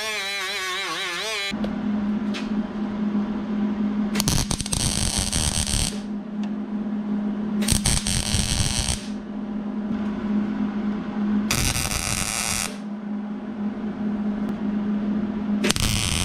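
A cordless grinder with a small sanding disc whines with a wavering pitch for about a second and a half, then stops. A wire-feed (MIG) welder then lays four short welds, each a burst of welding sizzle lasting about a second, with a steady low hum in between.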